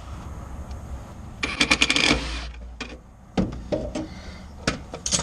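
Metal clicking and clattering as clamps and brackets are worked into place: a quick run of clicks about a second and a half in, then a few single sharp clicks.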